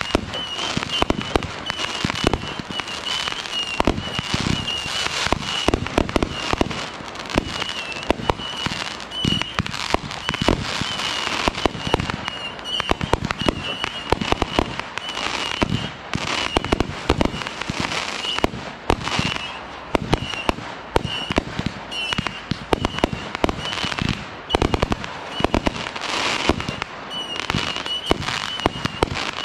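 Consumer aerial fireworks going off in rapid, overlapping volleys: a continuous barrage of bangs and crackling bursts, many a second. A high, wavering tone runs under much of it.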